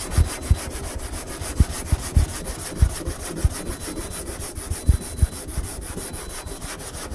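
Hand sanding block with 80-grit paper being stroked back and forth over a car's steel body panel: a steady, rhythmic rasping scrape. The panel is being blocked to show up the low spots of a dent before filler.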